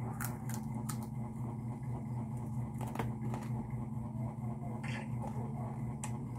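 Someone eating rice and chicken by hand: a few faint clicks and mouth smacks over a steady low hum.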